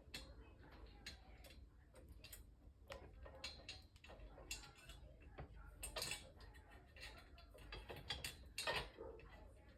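Irregular light clicks and taps of steel dresser-frame poles and screws being handled and fitted together, with a couple of louder knocks about six seconds in and near the end.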